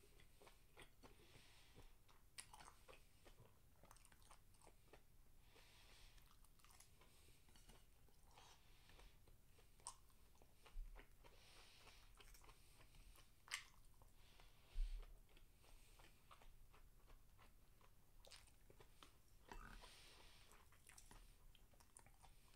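Faint close-up chewing of diced beef steak and rice, with a few short clicks of chopsticks against the dishes.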